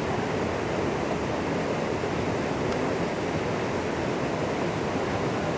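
Steady rushing of fast-flowing canal water, an even noise with no breaks.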